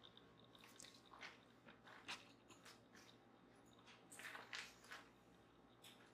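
Near silence with faint scattered rustles and small clicks, a few more around four seconds in: hands handling yarn at a circle knitting loom.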